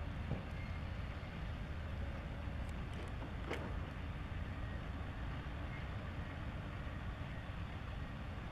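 Steady low rumble of outdoor background noise, with a faint click about three and a half seconds in.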